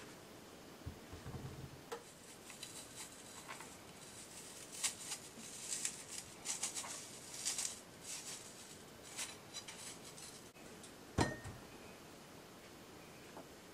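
Apple being peeled with a knife: a run of crisp, irregular scraping strokes as the blade cuts through the skin, then a single sharp knock near the end.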